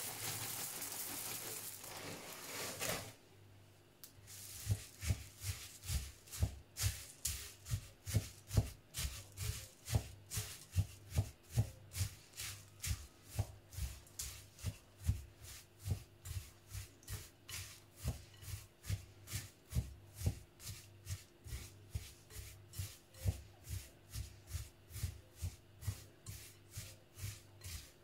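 Puffed rice pouring from a bag into a glass bowl, rustling for the first few seconds. Then a silicone spatula stirs the puffed rice and melted chocolate, scraping and knocking against the glass bowl in a steady rhythm of about two strokes a second.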